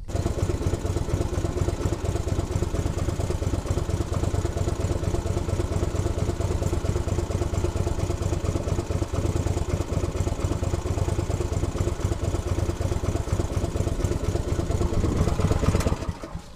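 A small boat's engine running steadily at a constant speed, starting and cutting off abruptly.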